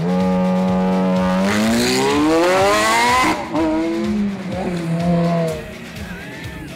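Ferrari F430's V8 engine held at a steady high note, then revving up hard under full acceleration with a rush of tyre noise. About three seconds in the pitch drops sharply at an upshift, and the engine note carries on lower and fades as the car pulls away.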